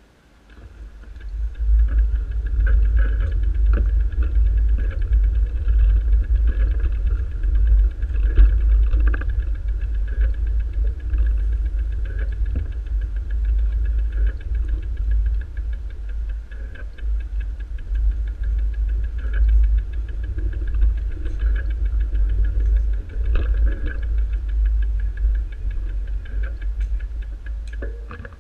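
Steady low rumble of wind and movement noise on a small action camera's microphone while the camera travels. It starts about a second in and eases off just before the end.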